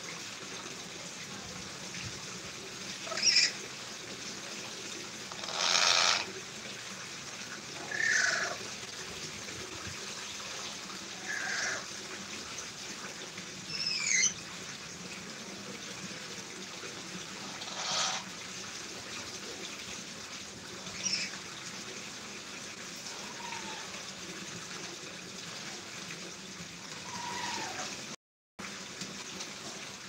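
A lory (nuri parrot) giving short squawks and whistles every few seconds, some sliding up or down in pitch, over a steady hiss.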